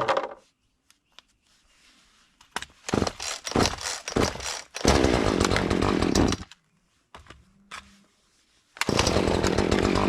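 Chainsaw cutting brush in stops and starts: a few short stuttering bursts, then two solid runs of a second or two each, with quiet gaps where it drops off between cuts.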